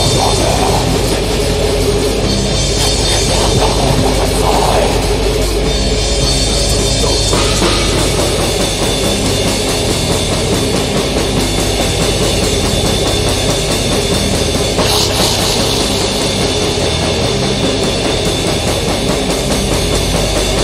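Loud heavy metal music with a drum kit.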